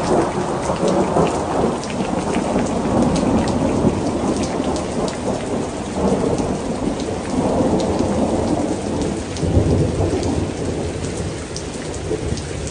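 Heavy rain falling steadily with thunder rumbling, the level swelling and easing, and many small sharp drop ticks throughout.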